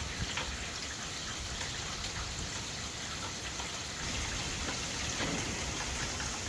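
Rain falling: a steady hiss with faint scattered drop ticks, over a low rumble of storm wind on the microphone.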